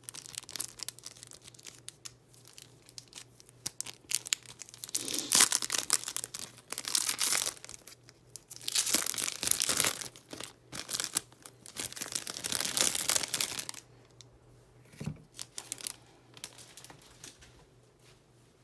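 Thin clear plastic sleeves crinkling and rustling as photocards are handled and slid out, in several bursts through the middle, then dying down to light handling near the end.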